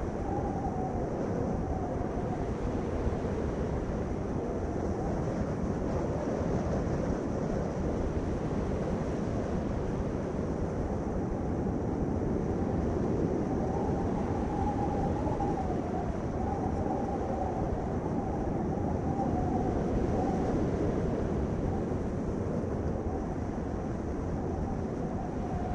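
Steady road and engine noise of a vehicle being driven, a constant low rumble with a faint wavering hum.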